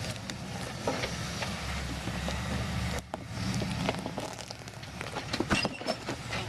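Off-road vehicle's engine running at low revs, with irregular crackling and popping of rocks and gravel under the tyres as it crawls over the rocky ground.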